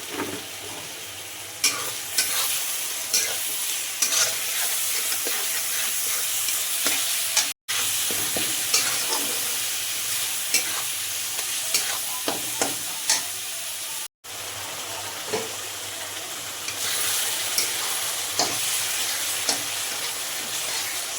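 Unripe-banana curry sizzling as it fries in a pan, with a metal spoon stirring it and clicking and scraping against the pan many times. The sizzle cuts out twice for a moment.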